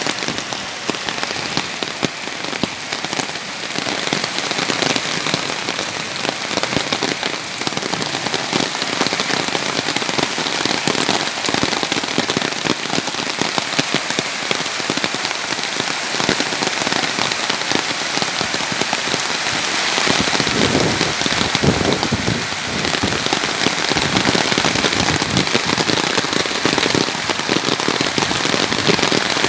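Hail and heavy rain pelting down: a dense, continuous clatter of small impacts, somewhat louder from about two-thirds of the way through.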